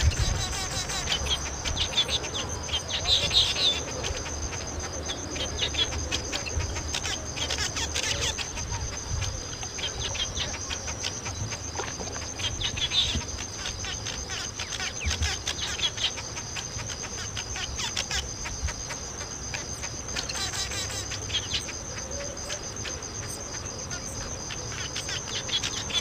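Weaver birds chattering in bursts of chirps every few seconds, over a steady high-pitched insect trill and a low rumble.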